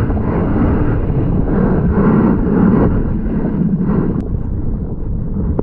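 Steady, muffled rumble of churning surf water, heard underwater through a GoPro's waterproof housing.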